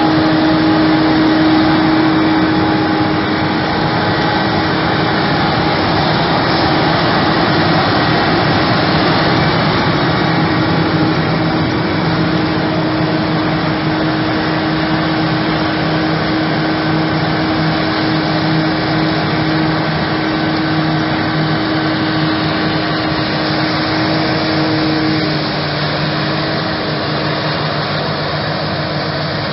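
Krone Big X 1100 forage harvester chopping maize, its engine and chopping drum under load giving a loud, steady hum, together with the tractor pulling the silage trailer alongside. The noise eases a little as the machines move away, dropping slightly near the end.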